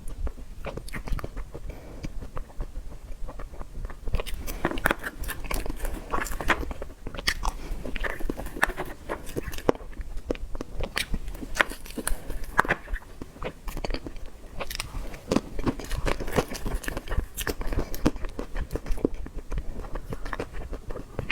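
A person chewing and biting into dessert close to the microphone, with many sharp, irregular wet mouth clicks and smacks, busier from about four seconds in.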